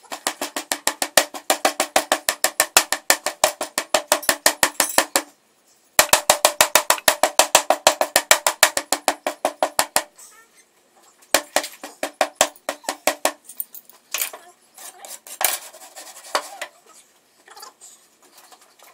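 Hammer blows ramming petrobond casting sand into a metal flask, fast and even at about five a second with a ringing note under them. A short pause about five seconds in, another fast run, then slower, lighter blows from about ten seconds in.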